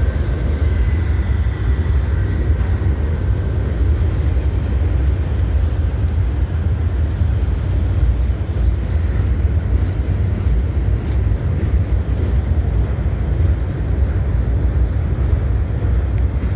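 Freight train rolling past: a steady, loud noise of wagons and wheels on the rails. There is a faint high squeal in the first couple of seconds.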